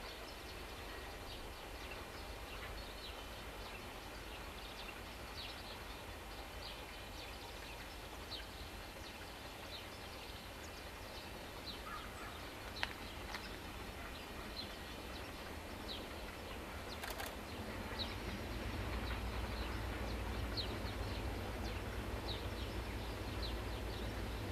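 Small birds chirping on and off over faint outdoor background, with one sharp click about halfway. A low rumble from the approaching diesel-electric locomotives swells about two-thirds of the way in.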